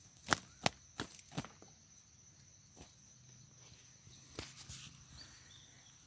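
Dry, burnt stalks cracking and rustling in short sharp snaps: a quick run of four in the first second and a half, then a few more about four and a half seconds in. Under them runs a faint, steady, high-pitched insect drone.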